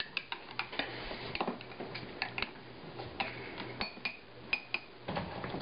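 Metal spoon clinking and tapping against glass as seasoning is spooned into a drinking glass and mixed: about a dozen light irregular clicks, a few ringing briefly.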